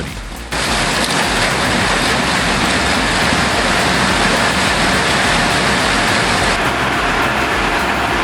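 Q100ED industrial shredder running, a loud, dense, steady noise that starts abruptly about half a second in.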